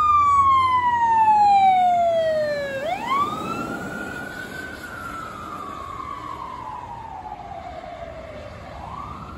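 Seattle Fire Department Medic One ambulance siren wailing in long, slow rising and falling sweeps. It fades steadily as the ambulance drives past and away.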